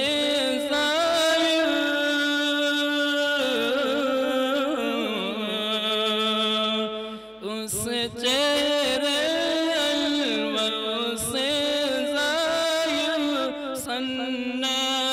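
A man sings a naat unaccompanied through a hall PA, drawing out long, wavering held notes. There is a brief pause for breath about halfway through.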